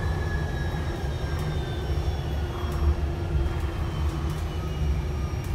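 Hydrogen fuel-cell double-decker bus heard from the upper deck while moving: a steady low rumble of road and body, with a high electric drive whine that slowly falls in pitch as the bus slows. Light clicks and rattles come through now and then.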